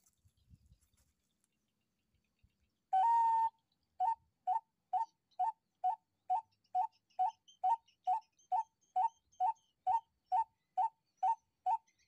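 Homemade pipe bird call (piuh) blown to imitate the call of a white-breasted waterhen (ruak-ruak): one long whistle about three seconds in, then a steady run of short rising whistle notes, about two a second. The pipe is set deep for calling birds at close range.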